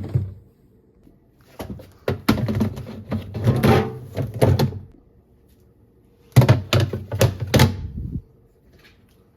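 Household items being handled and set down, with sharp knocks and clatters in two bursts, the second about six seconds in.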